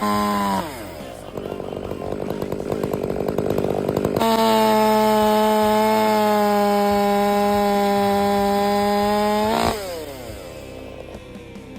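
Stihl MS 500i two-stroke, fuel-injected chainsaw with a skip tooth chain, bucking cherry logs. It drops from high revs to a rough idle, opens up to a steady full-throttle run about four seconds in and holds it for roughly five seconds, then falls back to idle near the end.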